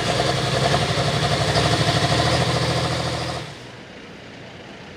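Pulling tractor's diesel engine running loud and hard with a fast, even firing pulse, then throttled back sharply about three and a half seconds in to a much quieter, steady low rumble.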